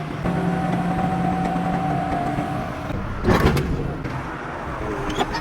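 Heavy machinery running with a steady hum, then a loud, brief noisy burst about three seconds in, with scattered metallic clicks.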